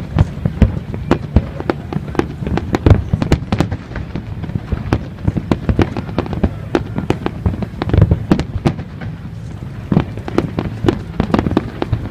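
Fireworks going off: an irregular, rapid string of sharp bangs and crackles, several a second, over a low rumble.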